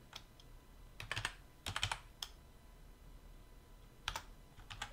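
Computer keyboard keys being typed: scattered keystrokes in a few short clusters, entering a value.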